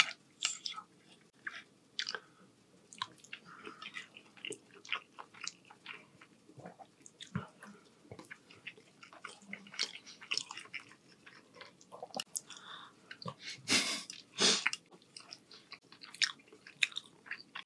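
Close-miked wet chewing of soft rotini pasta with meat sauce: irregular mouth smacks and small clicks, with two louder noisy bursts about 14 seconds in.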